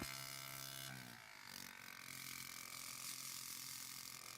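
Viair 70P portable tyre-inflator compressor running with a steady pitched motor hum, working against about 75 psi without slowing down. About a second in its tone thins slightly and it runs on a little quieter.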